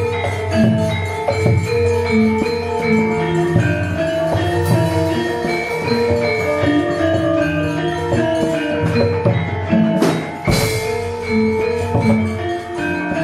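Gamelan music accompanying a wayang golek puppet dance: a dense, rhythmic pattern of bronze metallophone notes over drum strokes, with one loud clashing strike about ten seconds in.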